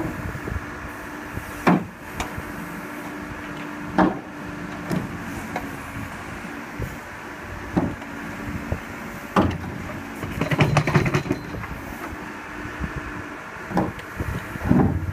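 JCB 3CX backhoe loader's diesel engine running under load with a steady hum as the backhoe digs, with a sharp clank of the bucket and arm every few seconds and a rattling clatter a little past the middle.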